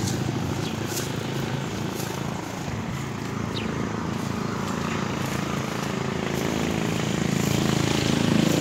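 A motor vehicle's engine running steadily, easing a little and then growing louder toward the end.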